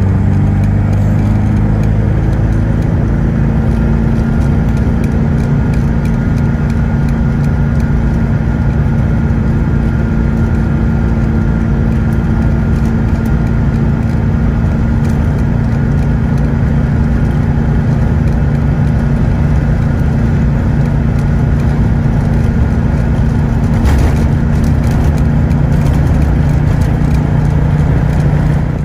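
A motor vehicle's engine running steadily with an even, unchanging note after a small shift in pitch about a second in.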